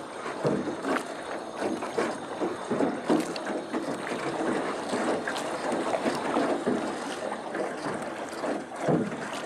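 Water lapping and splashing against the hull of a small river boat as it moves along: a steady wash of water with many small, irregular splashes.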